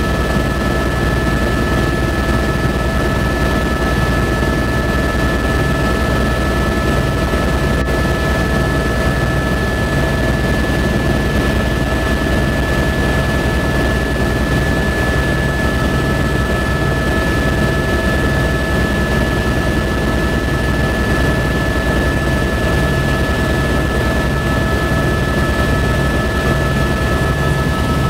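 Helicopter in level flight heard from inside the cabin: a steady rumble from the engine and rotor with a constant high-pitched whine of several tones over it.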